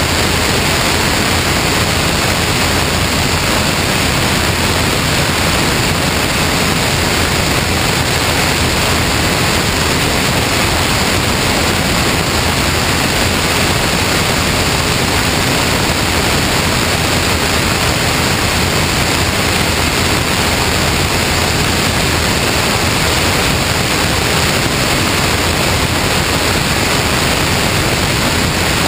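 Steady, loud rush of airflow over a camera mounted outside on the wing of a Cessna 162 Skycatcher in flight, with no engine note standing out from it.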